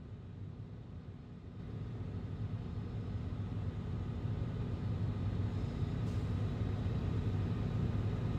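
Steady low rumble with a hum, like an engine running, growing gradually louder from about two seconds in.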